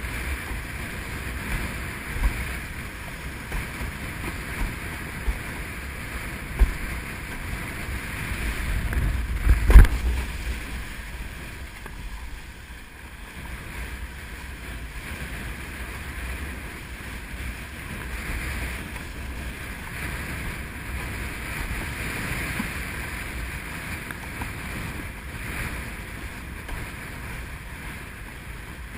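Wind buffeting the camera microphone over the steady rush of water under an Exocet Xwave 93L windsurf board sailing across choppy sea. Now and then a sharp thump comes as the board slaps the chop, the loudest about ten seconds in.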